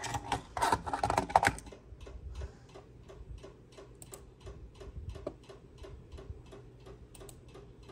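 Steady, rapid ticking at about three ticks a second, over a low steady hum.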